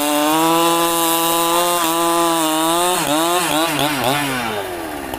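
Large petrol chainsaw revved up to full throttle and held there, cutting wood. About three seconds in, the engine speed wavers up and down several times, then drops back toward idle near the end.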